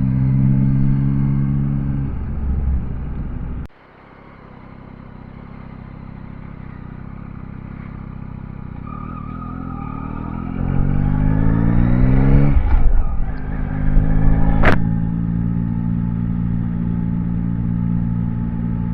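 Yamaha Tracer 9 motorcycle's inline three-cylinder engine running at a steady note while riding. The sound drops out suddenly near 4 s and builds back up; about 11 s in the engine accelerates with a rising pitch, breaks off near 13 s as with a gear change, and then settles to a steady note again, with a sharp click near 15 s.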